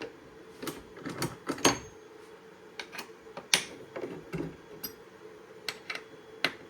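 Irregular clicks and knocks of hard objects being handled, over a faint steady hum.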